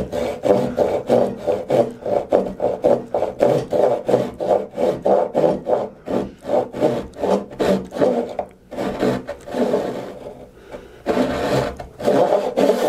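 Brass-backed hand saw cutting oak end grain in quick, short back-and-forth strokes, scoring a shallow starting kerf across the marked line of several stacked boards. The strokes ease off about two-thirds of the way through, then pick up again near the end.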